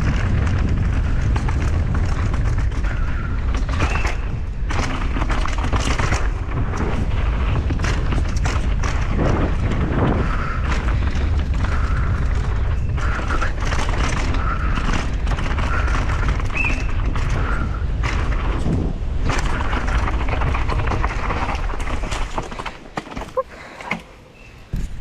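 Wind buffeting a camera microphone while a mountain bike rattles and clatters over rough trail on a fast descent, with many sharp knocks. It gets quieter for the last few seconds.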